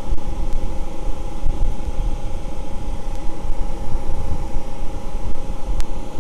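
Suburban NT-30SP propane RV furnace running with its burner lit: a steady low rumble with a steady hum over it.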